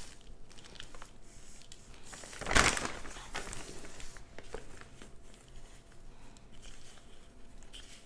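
Hands scooping loose potting mix into a black plastic pot and pressing it down over a buried bulb: crumbly rustling and crackling of soil against hands and the pot, with one louder rustle about two and a half seconds in.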